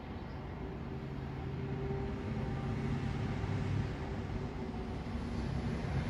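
A steady low mechanical hum and rumble with a faint droning tone, growing slightly louder partway through.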